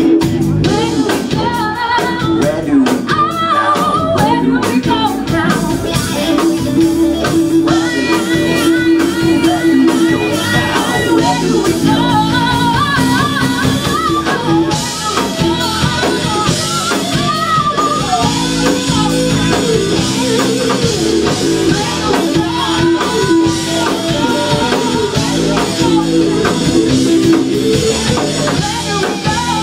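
Live rock band playing: a woman sings lead over electric guitars, bass guitar and a drum kit.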